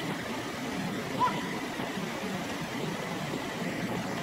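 Steady low rumbling background noise with one short high squeak a little over a second in.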